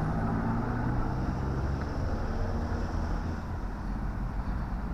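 A road vehicle's engine humming and fading out about halfway through, over a steady low rumble of wind on the microphone.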